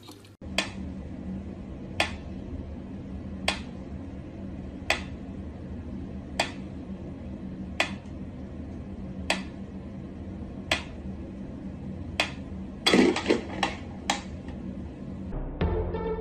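Mechanical pendulum metronome ticking slowly, one sharp tick about every second and a half, over a steady low hum. About two-thirds through, a brief cluster of louder knocks and clatter breaks in. Music starts just before the end.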